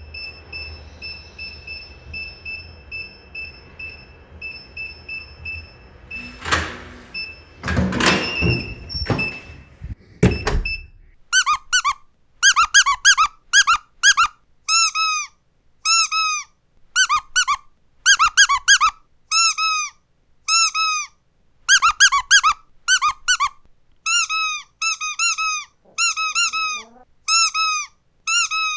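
Squeaky dog toy squeezed over and over, giving short high squeaks in quick clusters of two to five. Before it, in the first part, a few loud thumps.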